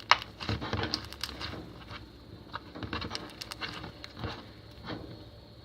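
Foam slime packed with styrofoam beads being squeezed and worked by hand, giving quick irregular crackles and clicks that are busiest at first and thin out toward the end.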